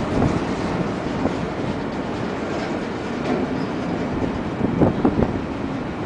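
Empty double-stack well cars of a freight train rolling past, a steady rumble of wheels on rail with a few sharp knocks about five seconds in.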